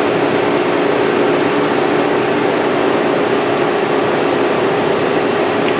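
Haas SL-20T CNC lathe spindle running steadily at 3,000 RPM: an even hum with a thin high whine over the machine's noise.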